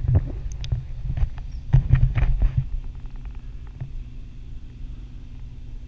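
Wind rumbling on an action camera's microphone high under a parasail, with knocks and rubbing on the camera as it is swung round during the first two and a half seconds, then a steadier, quieter wind rumble.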